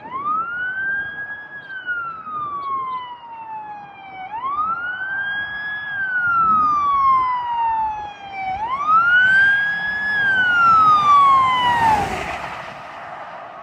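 Fire engine siren sounding a wail: three cycles of about four seconds, each rising quickly then falling slowly, growing louder as the truck approaches. About twelve seconds in, the siren stops as a rush of engine and road noise goes by.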